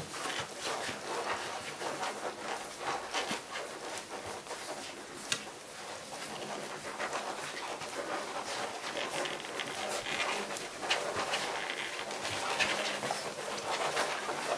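Dalmatian puppies nursing from their mother: a dense, irregular mix of suckling and smacking noises, with one sharper click about five seconds in.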